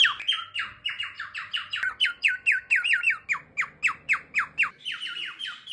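Cockatiel whistling a rapid, even run of short falling chirps, about five a second, each sliding from high to lower pitch, with a brief break near the end.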